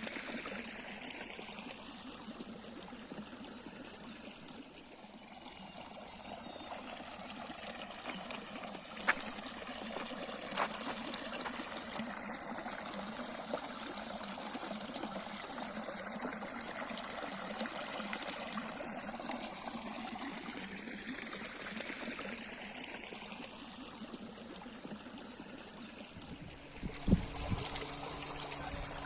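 River water trickling and flowing steadily. There are a few faint sharp clicks partway through, and a louder low thump about three seconds before the end.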